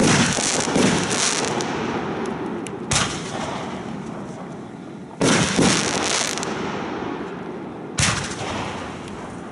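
Aerial firework shells going off overhead: a sharp bang right at the start, then more about 3, 5 and 8 seconds in. Each bang is followed by a long fading tail.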